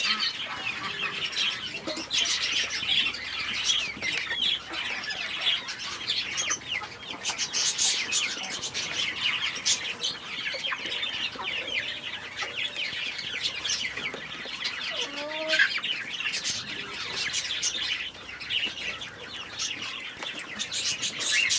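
Many small birds chirping at once, a dense, continuous chatter of quick high chirps.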